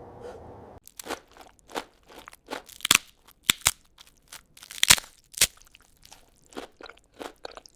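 Crispy pan-fried rice paper rolls crunching and crackling: an irregular run of sharp cracks that starts about a second in, with the loudest near three and five seconds.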